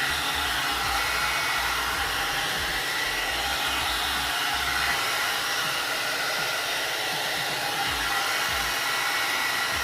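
One-step hot air brush hair dryer blowing steadily on its medium setting, with a thin steady whine from its motor and low rumbles now and then.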